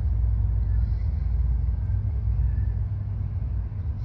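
A steady low rumble with a faint hiss over it, unchanging and with no distinct events.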